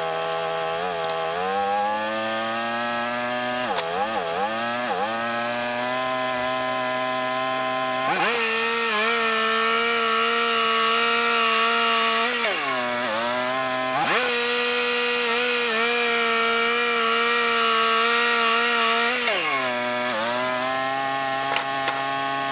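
Wood-Mizer LT35 band sawmill running: the engine revs up, then the band blade cuts through a pine log with a steady hiss. The engine pitch sags and recovers a few times under the load, then drops back near the end as the cut finishes.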